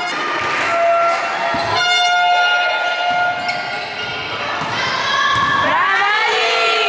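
Spectators blowing stadium horns in long steady blasts, with shouting and cheering voices rising and falling near the end. A couple of sharp thuds come a little over a second in.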